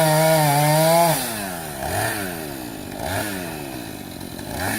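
Two-stroke chainsaw held at full throttle for about a second, then let off. Its revs fall and are blipped back up about three times.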